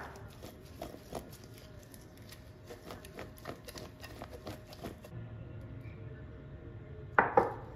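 Flour-coated potato cubes tossed in a glass bowl: a run of quick, irregular taps and clatters as the pieces knock against the glass and each other, then two sharp knocks close together near the end.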